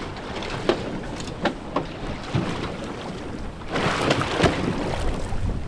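Scattered knocks and clunks of fishing gear being handled on a boat, over steady boat and wind noise that swells for a second or so near the end.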